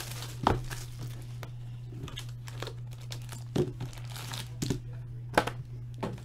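A trading-card box and its wrapping being opened by hand: crinkling and tearing with several short sharp knocks of handling. A steady low hum runs underneath.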